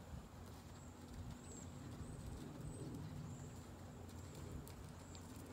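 Faint hoofbeats of a horse cantering on the sand footing of an outdoor arena.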